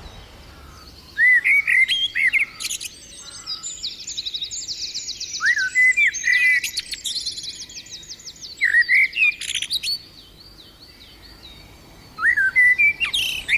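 A male common blackbird singing: four phrases with short pauses between them, each a mellow fluty warble that runs on into quick, higher, squeaky twittering.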